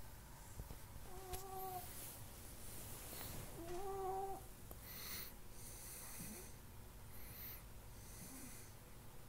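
A sleeping pet snoring: two whistling, squeaky snores in the first half, then four softer, raspy breaths about a second apart.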